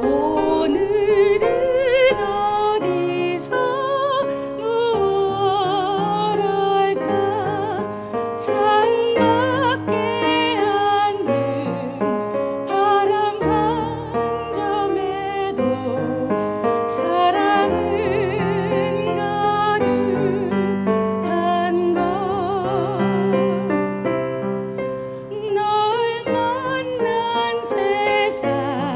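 A woman singing a slow song with wide vibrato, accompanied on an electronic keyboard playing long held notes.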